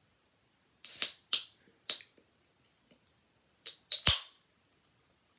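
Sharp metallic clicks and snaps of a juice can's pull tab being picked at and levered open, six in all, the loudest coming with a low thump about four seconds in.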